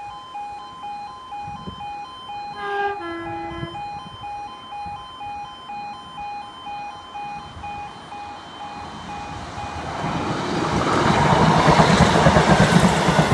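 Level crossing warning alarm sounding in steady pulses. About three seconds in a train gives a short two-tone horn, a higher note then a lower one. From about ten seconds a Transport for Wales diesel multiple unit runs over the crossing, its wheels and engine growing loud until it passes.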